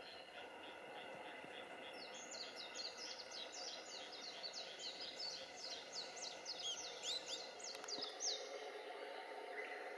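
A small bird singing a fast run of high, sweeping notes, about four or five a second, starting about two seconds in and stopping a little after eight seconds, over a faint steady background hum.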